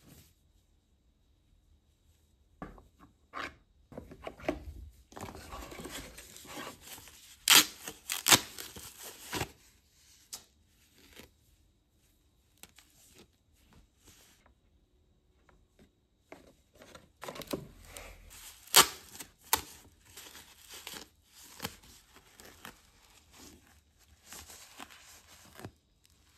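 Plastic packaging wrap crinkling and rustling as gloved hands unwrap small accessories, with a few sharp crackles. It comes in two spells of handling with a quieter pause between them.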